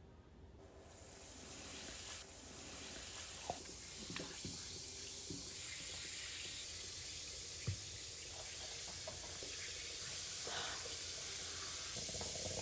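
Mini bath bomb fizzing in water: a steady hiss that builds up over the first couple of seconds, with a few faint knocks.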